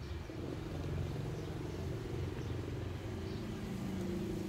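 Steady low motor rumble. A steadier, higher hum joins about three seconds in.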